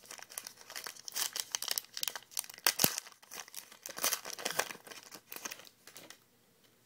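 Trading card pack wrapper being torn open and crinkled by hand, a busy irregular crackle that stops about six seconds in.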